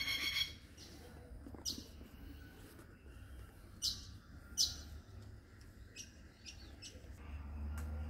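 Red-winged parrots calling: one longer ringing call right at the start, then a few short, sharp high-pitched calls spaced a second or two apart.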